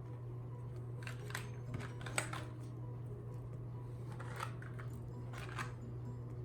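A few scattered, irregular keystroke clicks on a Keychron mechanical keyboard with Gateron Brown switches, over a steady low hum.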